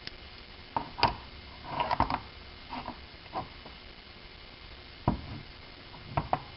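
Old metal gas pump parts being handled and set down: about eight scattered knocks and clinks, several close together about two seconds in.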